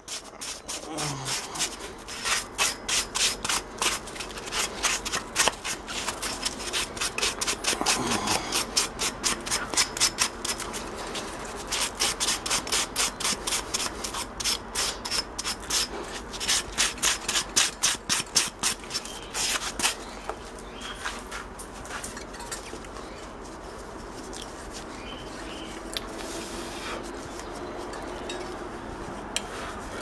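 Very fine sandpaper on a sanding block rubbed in quick back-and-forth strokes, several a second, over the antenna cap of a microwave oven's magnetron. It is scrubbing off carbonized food splatter that made the magnetron arc and spark. The strokes stop about twenty seconds in, and the sound turns much quieter.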